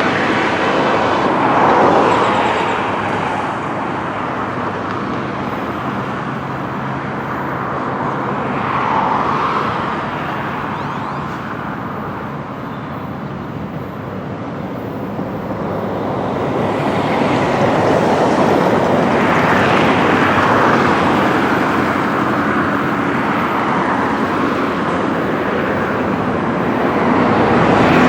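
Diesel freight train rolling past: a continuous rumble and rattle with a low engine drone underneath, swelling and easing several times.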